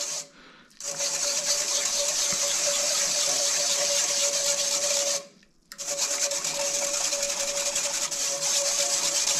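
Wire whisk scraping round inside a fine-mesh strainer, working miso paste through the mesh into the dashi so it dissolves smooth. A steady rasping scrape with a steady tone running through it, stopping briefly about half a second in and again about five seconds in.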